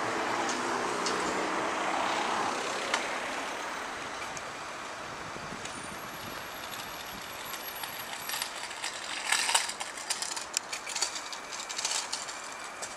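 City traffic at an intersection. A passing vehicle's noise fades over the first few seconds. Later a coach draws up, with a short hiss about nine seconds in and scattered clicks and knocks after it.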